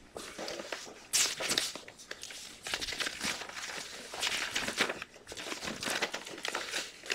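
Sheets of paper rustling and crinkling as pages of a stack of documents are turned over one after another, with a sharper rustle about a second in.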